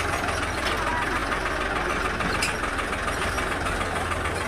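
Tractor's diesel engine running steadily while the tractor drives slowly, with a constant low hum and no change in speed.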